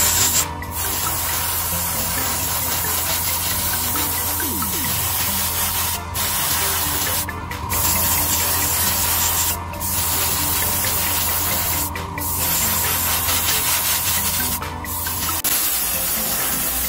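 Airbrush spraying paint in a steady hiss over the low hum of a spray booth exhaust fan. The hiss breaks off briefly every few seconds, and the hum stops near the end.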